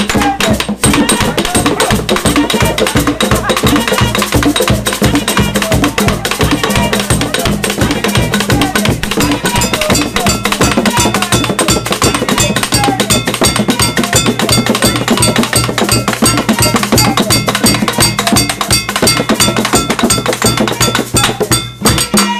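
An ensemble of hand drums playing a fast, steady, driving rhythm, with a bright struck-metal part on top like a cowbell.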